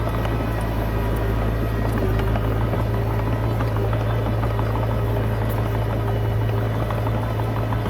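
Komatsu D20P bulldozer's diesel engine running steadily, a constant low drone with scattered light clicks over it.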